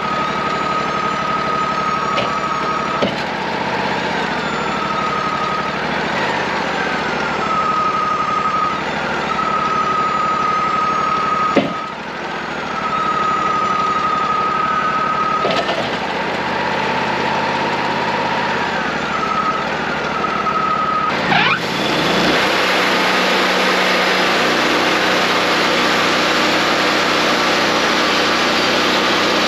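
Wood-Mizer LT40 portable band sawmill running, with a steady high whine that dips and returns every few seconds and a few sharp clicks. About twenty seconds in the engine revs up and a louder, even sound of the mill under power takes over.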